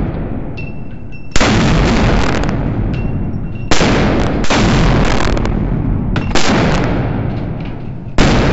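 Desert Eagle .50 AE pistol with a ported muzzle brake firing single shots in an indoor range stall: four loud shots about two to two and a half seconds apart, each followed by a long echoing tail.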